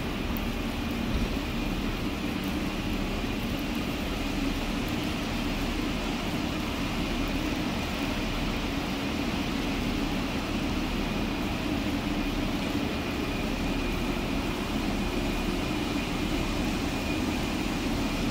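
Steady running noise of a vehicle: an even rumble and hiss with a low hum underneath, unchanging throughout.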